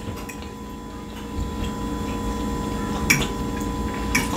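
Close-up chewing of a mouthful of steak and mac and cheese with the mouth closed, with two sharp clicks about three and four seconds in as a metal fork strikes the glass baking dish. A faint steady hum sits underneath.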